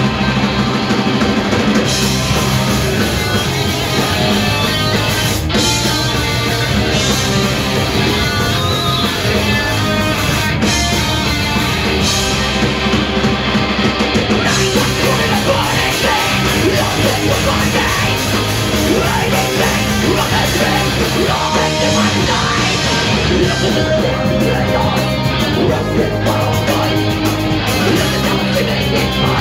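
Punk rock band playing live: distorted electric guitars and drum kit at full volume with a lead vocal, heard from the audience in a small club.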